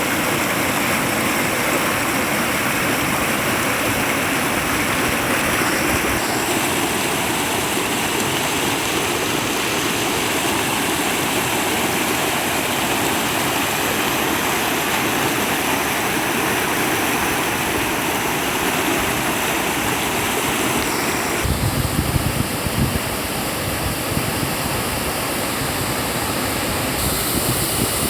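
River water flowing in a steady, even rush. About three-quarters of the way through, the tone of the water shifts and a brief low rumble comes in for a second or two.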